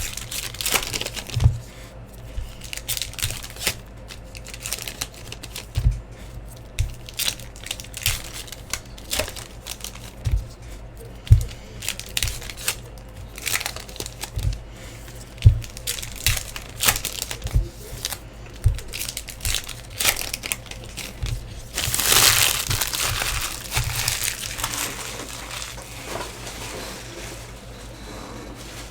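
Trading card pack wrappers crinkling and cards being handled, with many short rustles and clicks and a longer, louder spell of crinkling and tearing about three-quarters of the way through, as a foil pack is torn open.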